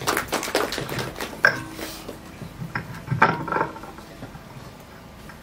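Handheld microphone being handled and passed from hand to hand, giving a run of knocks and rubbing clicks with a louder bump about a second and a half in and again about three seconds in, then dying down.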